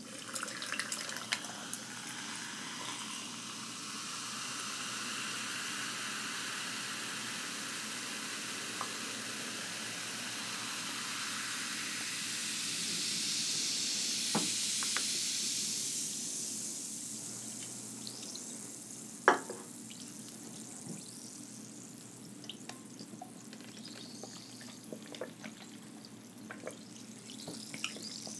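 Carbonated cranberry bubly sparkling water fizzing in a cup, a hiss of bursting bubbles that swells about halfway through and then dies away. A single sharp click comes about two-thirds of the way in.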